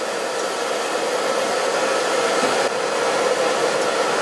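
Steady rushing, blower-like noise with a faint even hum underneath, running without a break.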